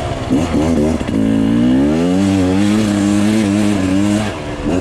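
Dirt bike engine blipping the throttle a few times, then revving up and holding high revs for about two seconds under load as it climbs a wooded hill trail, backing off near the end.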